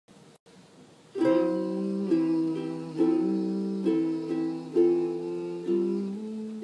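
Chords played on a plucked string instrument, starting about a second in and changing roughly once a second, at a slow pace with no voice.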